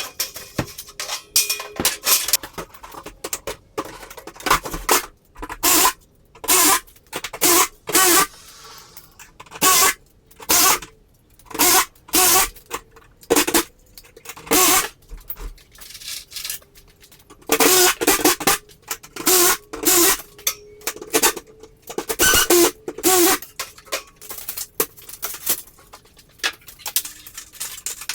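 Garage door installation work: a power tool runs in many short bursts about a second apart, with metal clinking between.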